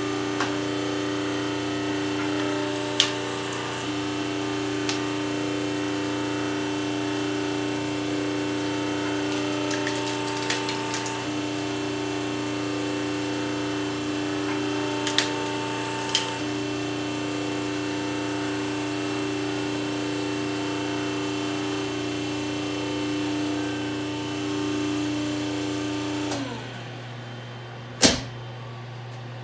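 Hydraulic power pack's 5-horsepower 440-volt electric motor and pump running with a steady hum while the forging press works, with a few sharp clicks along the way. The motor stops about 26 seconds in, leaving a low hum, and a single sharp knock comes near the end.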